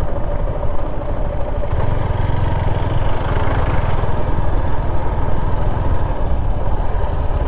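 Motorcycle engine running steadily as the bike rides along an unpaved dirt road.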